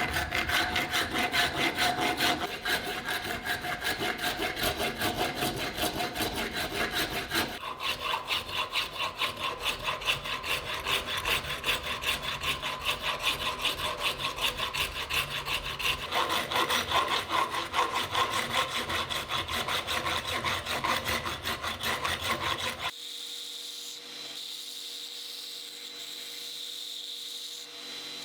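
Fast, even back-and-forth strokes of hand rubbing or abrading, a rasping scrape repeated many times. About 23 seconds in they stop, giving way to a quieter, steady sound with a faint hum.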